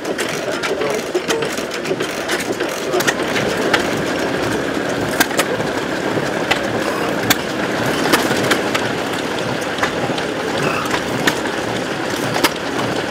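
Small vintage stationary engines running together, a steady mechanical clatter with irregular sharp clicks.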